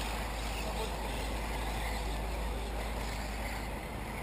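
Steady outdoor noise: a low rumble of wind on the microphone that eases near the end, over a faint hiss of 1/8-scale electric RC buggies running on a dirt track.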